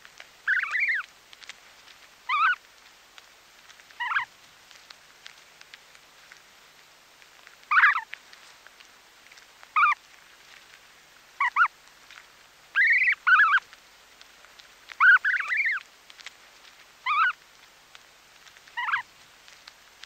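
Snow goose goslings calling close-up while feeding. Short calls with bending pitch come every second or two, a few of them doubled, over small ticks and snaps of grass being pulled out.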